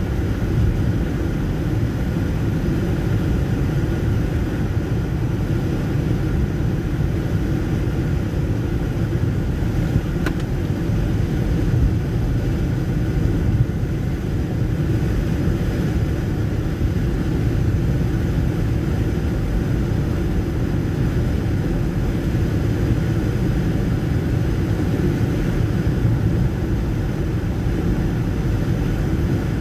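Steady low road rumble inside a car cruising on a wet highway, from the tyres and engine.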